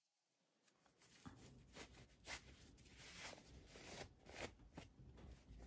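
Cotton fabric rustling and rubbing in the hands as a sewn rag doll body is turned right side out. The sound is faint and irregular, with small soft scratches, and starts about a second in.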